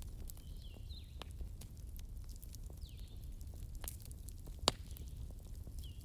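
Bonfire crackling: scattered sharp pops and snaps over a low steady rumble, with one loud pop a little before the end. Birds chirp now and then in the background.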